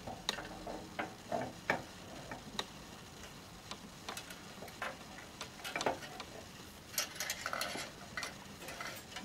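Handling noise: scattered light clicks and taps as a thermostat probe is fed into the glass thermostat tube of a laboratory water still's boiler.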